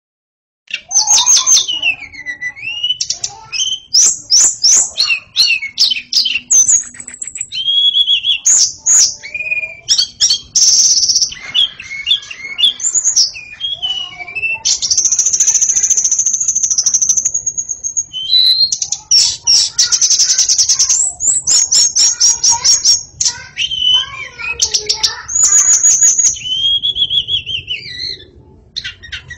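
White-rumped shama (murai batu) singing nonstop: a varied run of loud whistled phrases, fast trills and rapid clicks, with one long high note held for about three seconds near the middle.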